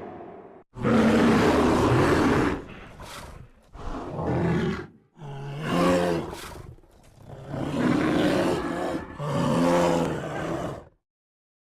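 Monster roars and growls: a series of about six separate roaring calls, each lasting one to two seconds, the last cutting off about a second before the end.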